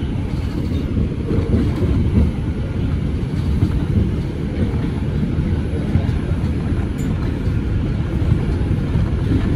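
Bombardier R142 subway car running between stations, heard from inside the car: a steady low rumble of wheels on rail.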